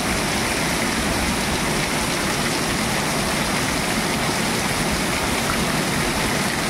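Heavy monsoon downpour falling on wet pavement and parked motorcycles: a steady, even hiss of rain and splashing water.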